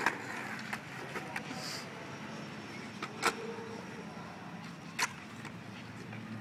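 Skateboard wheels rolling on concrete in a steady rumble, with a few sharp clacks of the board.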